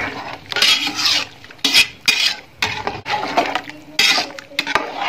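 A long metal ladle stirring rice and water in a metal pot, scraping against the pot in several quick strokes, with a few sharp clinks of metal on metal.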